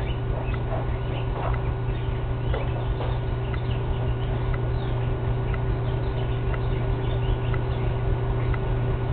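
A steady low hum with faint, scattered bird chirps and a soft tick about once a second.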